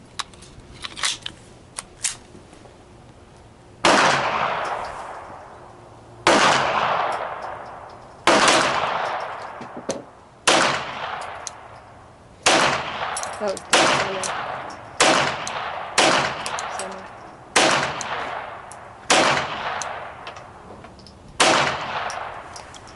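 Firearm shots at a shooting range: about eleven single shots at a slow, steady, aimed pace, roughly one every two seconds, each trailing off in a long echo. A few small handling clicks come before the first shot.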